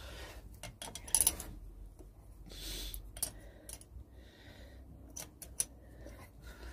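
Metal hand tools clinking and clicking as a 13 mm wrench is set on the cylinder bolts of the engine. There are scattered sharp clicks, the loudest pair just after a second in.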